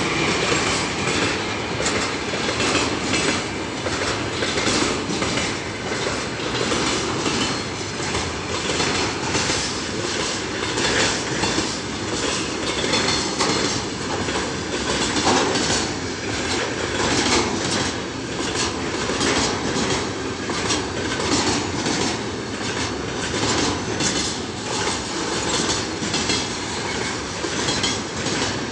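Freight train wagons rolling past at speed, the wheels clattering over rail joints in a steady stream of clicks over a continuous rumble.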